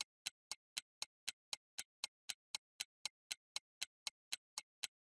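Timer ticking sound effect: sharp, evenly spaced clock-like ticks, about four a second, counting down the five seconds given to answer a question.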